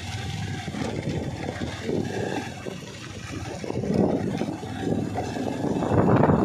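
Motorcycle engine running while riding, mixed with wind rumbling on the microphone; it grows louder about four seconds in and again near the end.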